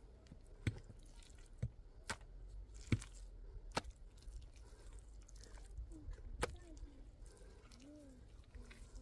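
A few sharp, irregular knocks, about six spread over several seconds, with faint short calls near the end.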